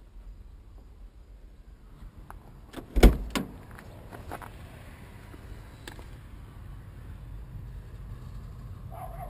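The door of a 1983 Zastava 750 is opened: a loud metal clunk of the latch and door about three seconds in, then a few lighter knocks.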